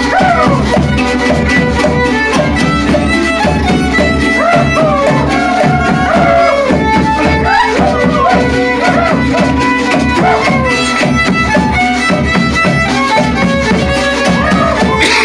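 A violin and a strummed guitar playing a lively traditional Mazatec huehuentón dance tune live, the fiddle melody sliding up and down over the guitar's steady strummed rhythm.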